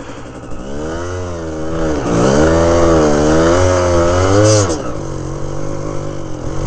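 Single-cylinder trail motorcycle engine under a rider on snow, the revs rising and falling repeatedly as the throttle is worked, loudest in the middle; near the end it drops to a lower, steadier note.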